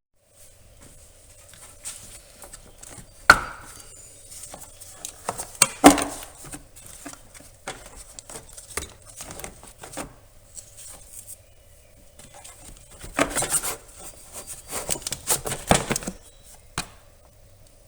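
Scattered knocks, clicks and rustling of someone handling things and moving about, with two sharp knocks about three and six seconds in and a busier stretch of rustling and clicking near the end. A faint steady hum sits underneath.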